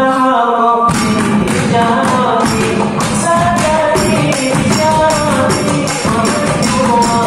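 A male voice sings a sholawat melody into a microphone over improvised hand percussion, including a bamboo tube struck with a stick, keeping a steady beat. The percussion comes in about a second in.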